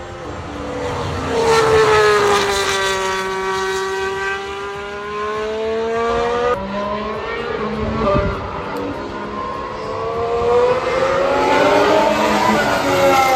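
Formula 1 car's turbocharged V6 hybrid power unit on track: the engine note drops as the car slows, then climbs as it accelerates. It climbs once more in the last few seconds.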